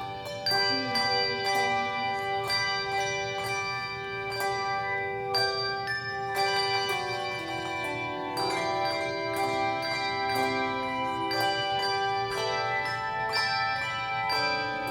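Handbell choir playing a Christmas song: bells struck one after another, each note ringing on and overlapping the next.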